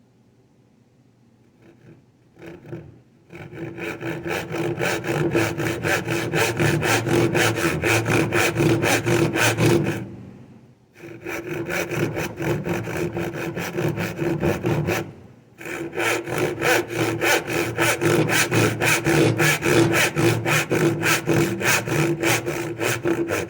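Back saw cutting into a board clamped in a bench vise, ripping down along a finger-joint line toward the shoulder. A few tentative starting strokes, then steady back-and-forth sawing in three runs with two short pauses.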